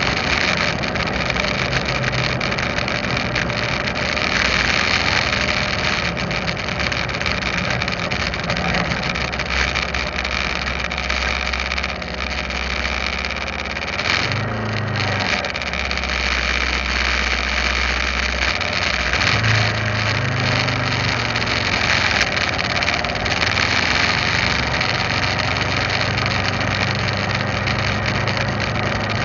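Motorcycle engine running with wind and road noise among other scooters in traffic. About halfway through it slows to a stop and idles for a few seconds, then pulls away again.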